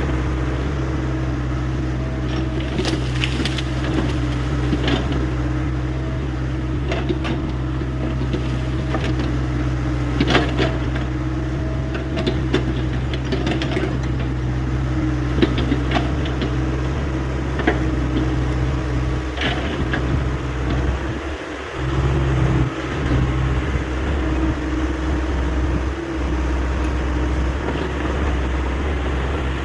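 Hyundai 85A excavator's diesel engine running steadily under work, with scattered knocks. Its note drops briefly about two-thirds of the way through, then comes back stronger.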